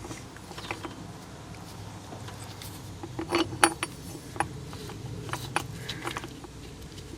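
Metal hand tools, sockets and a wrench, being handled: a string of sharp clicks and clinks, loudest in a quick cluster about halfway through.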